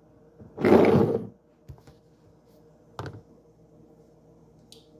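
A short rustling burst lasting under a second, about half a second in, then a single light knock about three seconds in, from kitchenware being handled while dishes are dried; a faint steady hum runs underneath.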